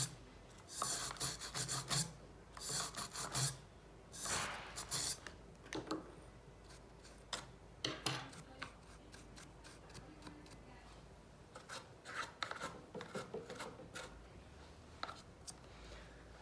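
Brush scrubbing old silicone thread locker off the threads and out of a compressor tube, in irregular rasping strokes that are heavier during the first five seconds, then lighter scratches and ticks.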